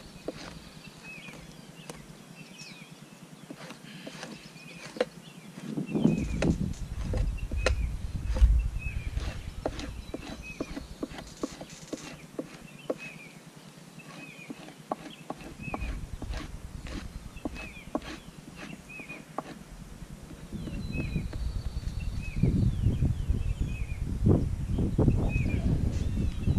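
Knife scraping fat and meat off a raw deer hide on a pine-log fleshing post: irregular scraping strokes with short knocks, louder about six seconds in and again over the last few seconds.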